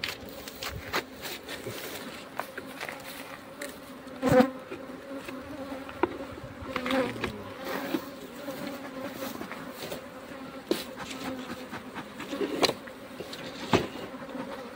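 Honeybees buzzing around an opened hive: a steady hum, with single bees passing close and louder about four seconds in and again near the end. Scattered light clicks and knocks of the wooden hive boxes and frames being handled.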